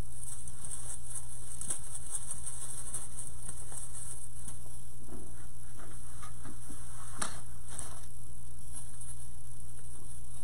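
Steady low electrical hum with a high hiss, over faint rustling and light clicks of artificial greenery and berry picks being handled, with one sharper click about seven seconds in.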